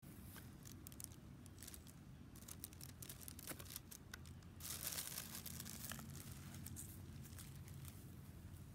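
Faint rustling and crackling with scattered small clicks, and a louder rustle lasting about a second around the middle.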